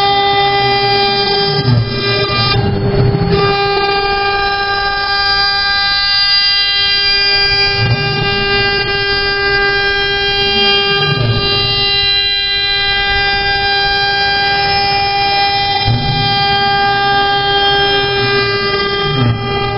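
High-speed CNC router spindle whining steadily as its cutter carves wood, with a lower sound that rises and falls every few seconds as the head travels.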